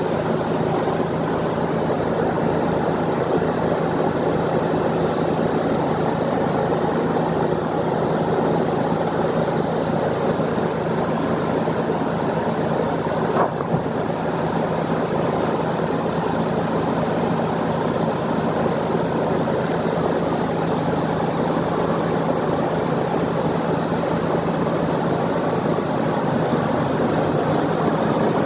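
Sawmill engine running steadily, with one brief sharp knock about halfway through.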